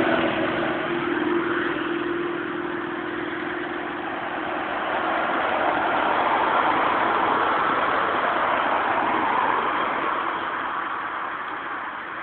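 A motorcycle's engine fading over the first few seconds as it rides away, then a car driving along the road, its sound swelling in the middle and fading toward the end.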